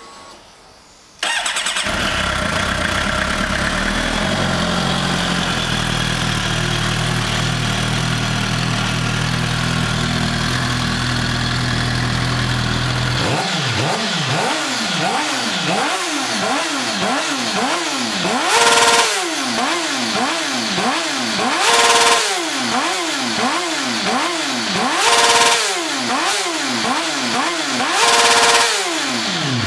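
A 2011 Suzuki GSX-R750's inline-four engine, fitted with a carbon-fibre GP slip-on exhaust, fires up about a second in and settles into idle. From about halfway it is blipped over and over, the revs rising and falling in quick succession, with four higher revs in the last ten seconds before it drops back to idle.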